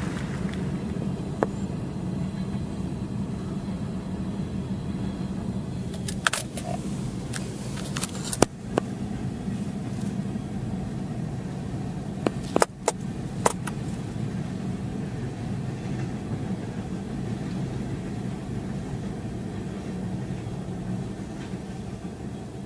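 Car engine's low, steady hum heard from inside the cabin, with a few sharp clicks and rattles in two small clusters partway through.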